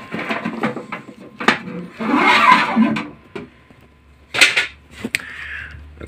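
Handling noise as the ribbed rubber drive belt of a washing machine is worked off the drum pulley: rubbing and rattling, with sharp clicks and knocks about one and a half seconds in and again past four seconds.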